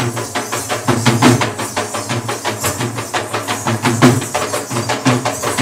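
Fast, steady drumming of Sri Lankan low-country dance music, a dense run of rapid, even strokes.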